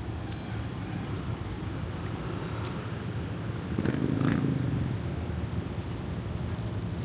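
Low, steady rumble of street traffic, swelling as a vehicle passes close about four seconds in.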